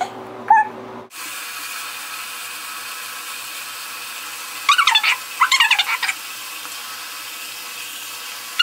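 Handheld shower sprayer hissing steadily as it runs water into a glass bowl of microwaved Ivory soap, starting about a second in. Around five to six seconds in, a few short high squeals sound over the hiss and are the loudest thing.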